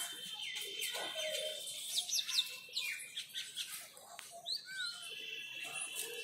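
Small birds chirping: a run of short, high chirps over a steady high background tone.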